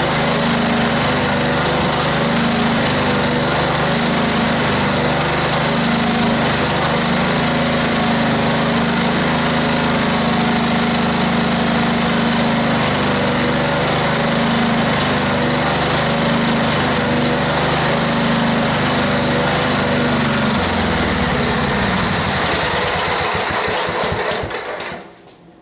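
Kohler Pro 16 hp riding-mower engine running steadily after a carburettor cleaning. A mild surge remains, which the owner puts down to dirt still in the low-speed idle jet. About 20 seconds in it slows, and it shuts off just before the end.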